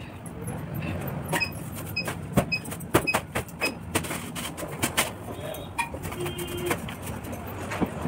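Grass broom sweeping a hard floor: short brushing strokes with sharp taps as it hits the floor. A bird chirps over and over at an even pace in the first half, and a short steady tone sounds briefly about three-quarters through.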